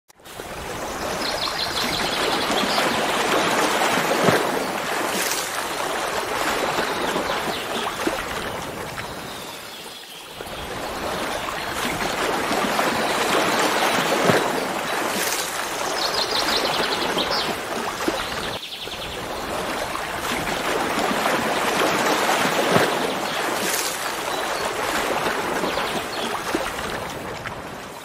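Steady rush of running water from a waterfall or stream, swelling and easing, with two brief dips in level. Twice a short, rapid, high chirping trill sounds over it.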